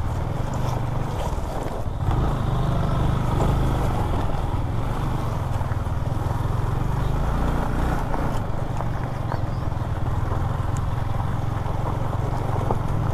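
Motorcycle engine running at low, fairly steady revs on a rough dirt track, with a few faint knocks.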